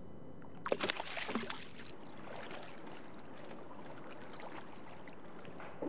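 Brief splashing of water against a kayak about a second in, then a faint, steady wash of water noise.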